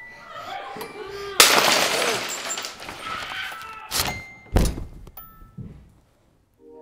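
A sudden loud crash, as of something breaking, dying away over a couple of seconds. About two and a half seconds later come two heavy bangs just over half a second apart.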